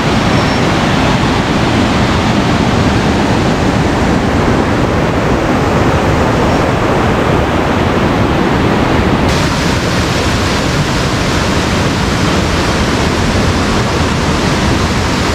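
Steady rush of a waterfall close by: a dense, even noise of falling water with no gaps. About nine seconds in, the tone suddenly turns brighter.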